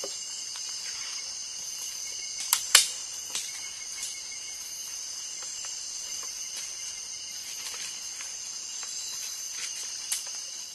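Night insect chorus of crickets, a steady shrill ringing of several pitches. A few sharp clicks break in, two close together about two and a half seconds in (the loudest) and another near the end.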